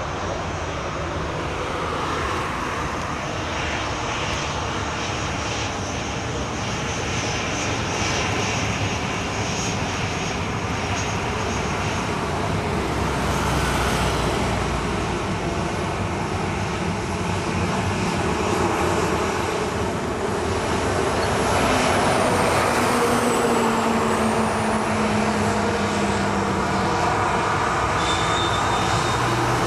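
Jet engines of a taxiing Boeing 737 running at low thrust: a steady rush with a thin high whine. About two-thirds of the way through the whine dips in pitch and rises again, and the sound grows a little louder.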